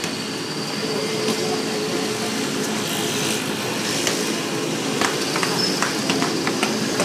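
A basketball bouncing on a concrete court, a string of short sharp knocks from about five seconds in, over a steady background hum.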